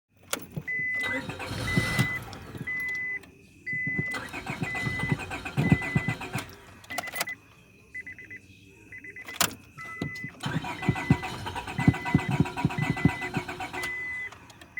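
1998 Honda Accord engine being cranked by its starter in three long bursts without catching, with a sharp click between attempts. The car's high-pitched warning chime beeps steadily all the while, a little under twice a second. The engine turns over but won't fire, which the owner puts down to a weak fuel pump.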